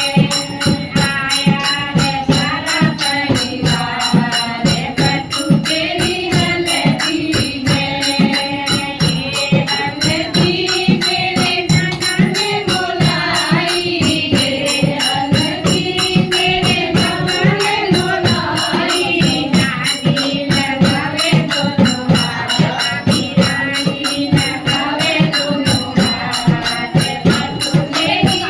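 A group singing a Kumaoni haldi folk song (badhai geet) in chorus, with tambourine-like percussion keeping a steady beat.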